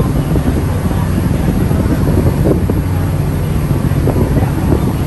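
Sightseeing ferry's engine running with a steady low hum, with wind noise on the microphone.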